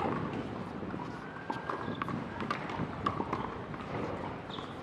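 Scattered sharp knocks of tennis balls being hit and bouncing on a hard court, with light footsteps of a player moving on the court.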